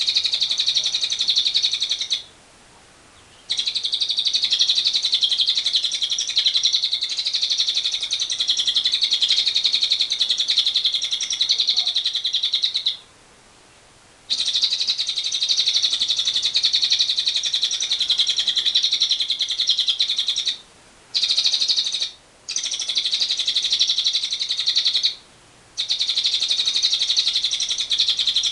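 Lovebird singing its ngekek: long unbroken runs of high, very rapid rattling chatter, the longest lasting about ten seconds, broken by short pauses. This long continuous ngekek is the trait that keepers prize.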